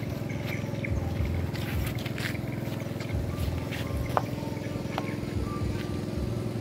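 A motor running steadily, with scattered light clicks.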